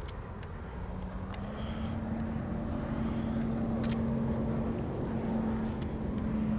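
Four Alco diesel-electric locomotives working upgrade, their engines droning steadily over a low rumble and growing louder as the train approaches; the drone steps up a little in pitch about one and a half seconds in. A few sharp clicks sound over it.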